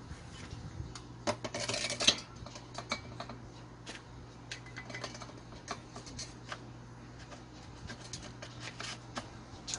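Clicks and knocks of a butane gas canister being fitted into the canister holder of a gas brush cutter and its plastic cover being closed, with a short rushing scrape about one and a half to two seconds in. A steady low hum sits underneath.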